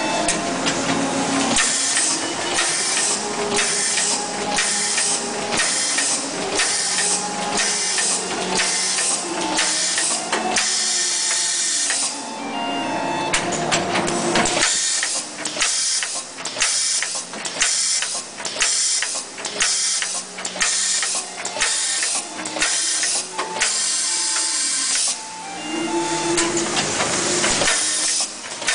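Plastic diaper-bag making machine running: a rapid regular cycle of mechanical strokes, about one and a half a second, each with a burst of hissing noise, over a steady machine hum.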